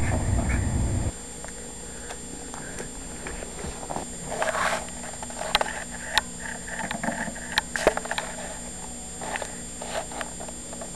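Two small dogs playing on carpet: scattered clicks, thumps and short scuffles. A low rumble runs through the first second and cuts off suddenly.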